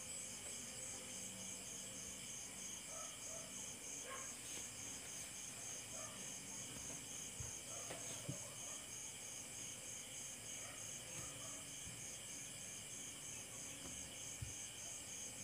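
Crickets chirping in a steady, evenly pulsed high trill, with a few faint knocks.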